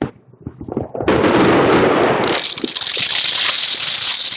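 Fireworks going off: a sharp pop, then about a second in a loud, dense, rapid crackling with hiss starts abruptly and keeps going, easing off near the end.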